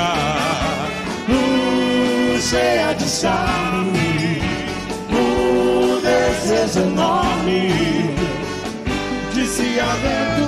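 Big band with horn section, drum kit and hand percussion playing a medley, with several singers singing over it.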